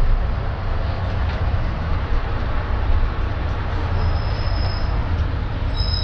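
Diesel double-decker bus heard from its top deck: a steady low engine and road rumble as it drives in traffic. A thin, high brake squeal comes in about four seconds in and again near the end as the bus slows up behind the bus ahead.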